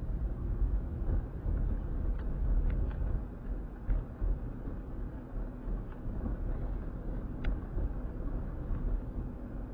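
A car being driven, heard from inside the cabin: a steady low rumble of engine and road noise, with a few faint clicks.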